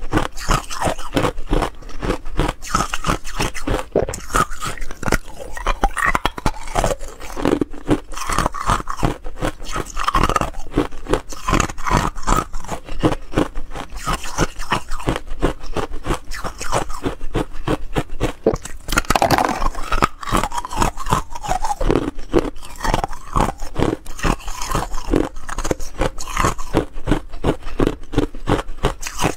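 Thin, hollow ice shells crunching and cracking as they are bitten, chewed and broken apart: a dense, unbroken run of sharp cracks, several a second, with a louder burst a little past the middle.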